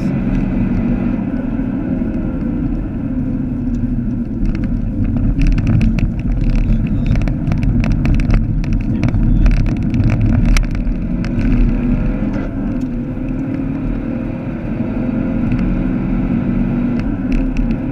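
Vauxhall Astra VXR's 2.0-litre turbocharged four-cylinder engine running at speed, heard from inside the cabin. From about four seconds in to about twelve seconds, a rapid run of knocks and rattles as the car crosses a bumpy concrete banked corner.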